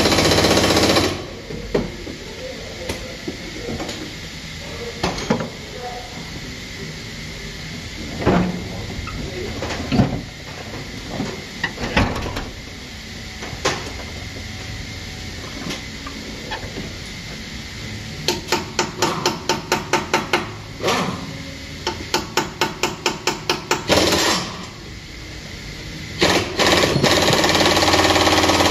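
Air impact wrench rattling in short bursts as front-wheel fasteners are undone, with sharp metallic clanks of tools in between. Midway come two runs of quick, even rattling strokes, about five a second.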